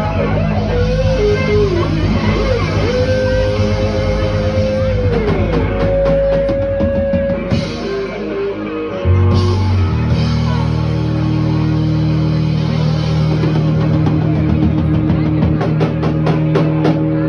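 Live rock band playing loud, with electric guitar, bass and drum kit. The electric guitar bends and sustains lead notes over the band. About nine seconds in the band hits a heavy low chord and holds it ringing. Drum and cymbal hits come quicker and quicker over it near the end.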